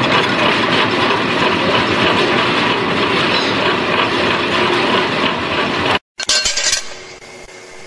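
Wire crimping machine, two large toothed steel wheels meshing and bending wire into a wave, making a dense continuous metallic clatter. It cuts off about six seconds in and gives way to a lathe running more quietly with a steady hum.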